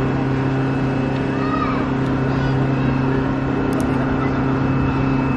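Steady machine drone with a constant low hum and a fainter higher whine, unchanging in pitch and level. Faint voices are mixed in.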